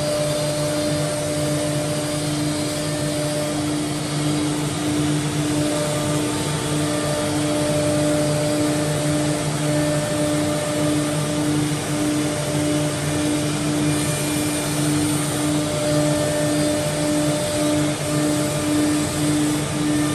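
Holztek HT-R4F four-head CNC router running, its spindles and dust extraction making a steady hum over a rushing noise.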